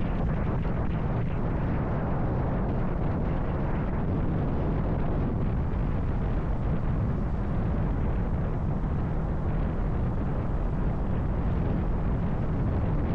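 Vitacci XMT 250 motorcycle running steadily at road speed, with wind rushing over the microphone.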